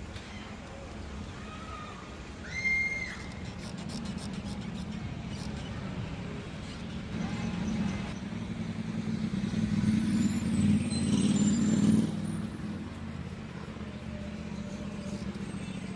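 City road traffic heard from a bicycle: a steady hum of vehicle engines. One vehicle grows louder from about eight seconds in and passes close, then cuts away sharply around twelve seconds. A brief high-pitched squeal comes about three seconds in.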